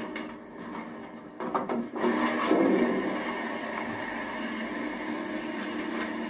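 A few knocks, then a vacuum cleaner comes on about two seconds in and runs steadily as its floor nozzle is pushed over a hard floor.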